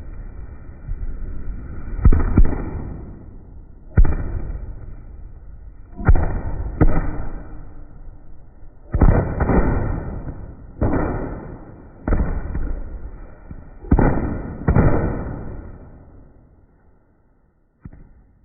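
Firecrackers going off one after another: about a dozen sharp bangs, spaced half a second to two seconds apart, each followed by a long fading echo. The last bang, near the end, is fainter.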